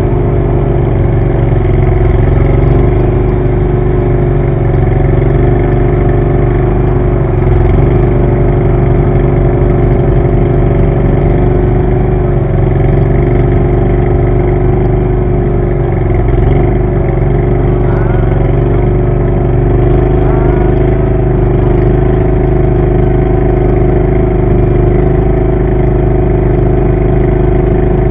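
Small engine running loudly and steadily at an almost constant speed, its pitch wavering only slightly.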